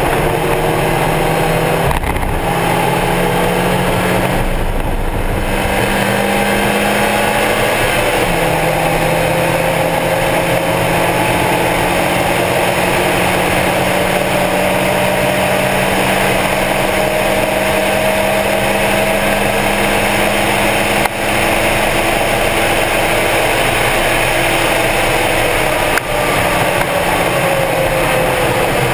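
Stock Mazda Miata's four-cylinder engine at full throttle on a race track, its pitch climbing slowly through a long pull with a step in pitch about eight seconds in, over steady wind and road noise.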